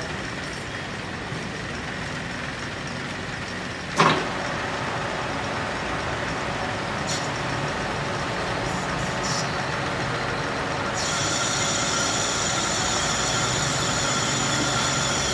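Steady machine noise around a metal lathe, with one sharp knock about four seconds in. A cluster of high whining tones joins around eleven seconds in.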